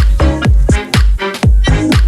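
Background electronic dance music with a thumping kick drum on every beat and synth chords.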